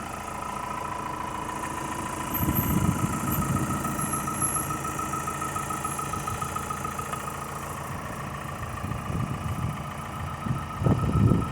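2020 Ford Transit EcoBlue four-cylinder diesel engine idling steadily, heard under the open bonnet, with a steady high-pitched whine running through it. A louder low rumble comes in about two and a half seconds in and again near the end.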